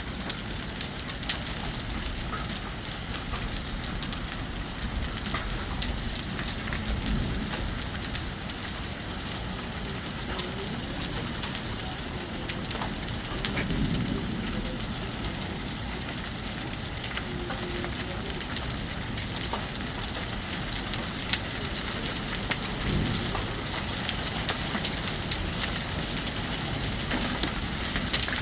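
Heavy rain pouring steadily, with many sharp ticks of drops or hail striking hard surfaces scattered through it.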